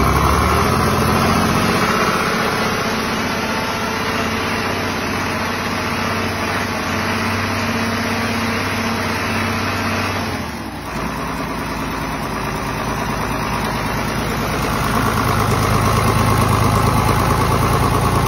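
Secondhand multi-cylinder diesel engine running steadily on a test run. Its sound dips briefly about ten seconds in, then grows louder again near the end.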